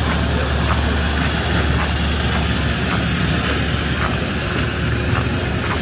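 Steady low rumble of a running engine, with faint scattered ticks.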